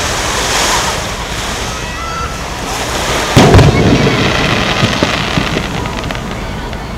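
An aerial fireworks shell bursting with one loud boom about three and a half seconds in, its rumble rolling on for a second or two over a steady background noise.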